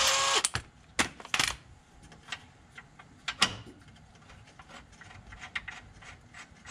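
Air hammer with a long punch rod hammering on the differential mount to drive out a bushing collar; it stops about half a second in. Several sharp metal clinks and taps follow as the rod is moved against the bracket.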